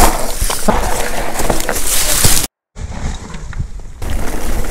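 Wind rushing over an action camera's microphone while a mountain bike rolls over a dirt trail, with scattered knocks and rattles from bumps. The sound drops out to silence for a moment about halfway through, then resumes somewhat duller.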